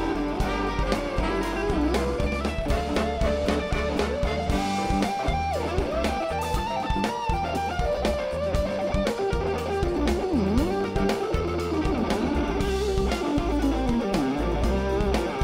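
Live rock band music: a Les Paul-style electric guitar plays a lead solo, its melody sliding and bending between notes, over bass and drums.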